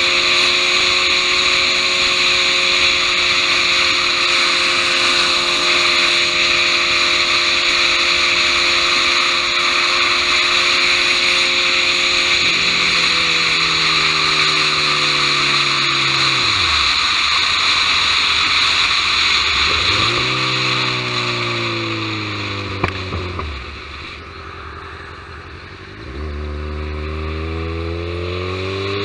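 Kawasaki Ninja 1000 inline-four engine heard from on the bike, holding a steady pitch at cruise under loud wind rush. About halfway through it drops in pitch as the bike slows, rises briefly, then falls again and goes quieter, close to idle. Near the end it climbs in pitch again as the bike pulls away.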